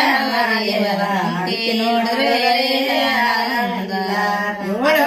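Women singing a Kannada devotional folk song to Mahadeva, drawing out long held notes that slowly bend in pitch.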